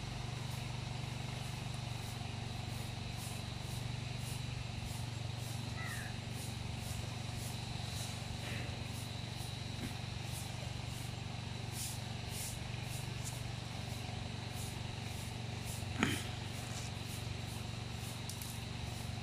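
A steady low hum with faint outdoor background noise, and a single sharp click about sixteen seconds in.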